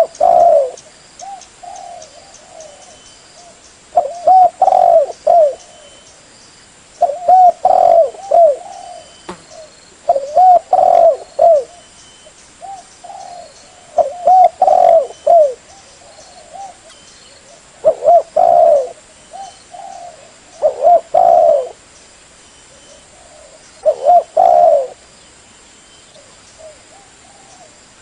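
Spotted dove cooing in repeated phrases of three or four low coos, one loud phrase every three seconds or so, with fainter coos between the phrases.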